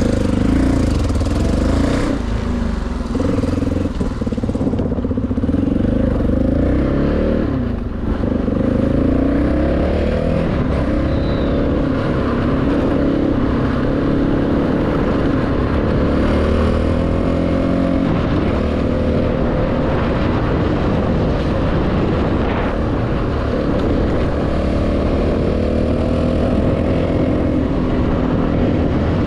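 CFMoto 250NK's single-cylinder engine through a full Akrapovič exhaust while riding, the engine note rising and falling with throttle and gear changes. The note drops sharply about eight seconds in, then climbs again.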